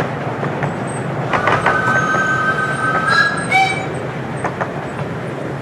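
Miniature railway passenger coaches rolling past, their wheels clicking over rail joints, then fading away. About a second in, a steam whistle sounds a steady two-note chord for about two seconds, ending in a brief higher note.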